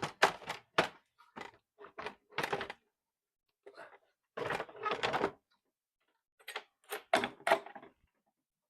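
A series of clicks, knocks and a short scrape from handling a pinball machine's power cord and plugging it in, ending in a cluster of quick clicks.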